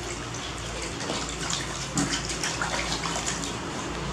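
Water splashing and trickling as a wet baby macaque is washed by hand over a plastic basin, with small splashes throughout.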